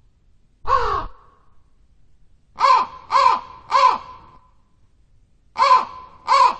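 Crow cawing: one caw, then three in quick succession, then two more near the end, each call dropping slightly in pitch.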